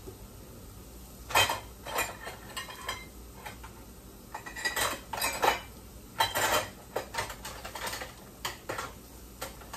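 Metal kitchen utensils clinking and rattling against each other as a hand rummages through a utensil drawer, in irregular clatters starting about a second in.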